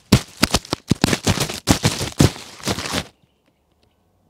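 Loud, dense crackling and crunching rustle right at a clip-on microphone, many sharp cracks in quick succession, cutting off abruptly about three seconds in.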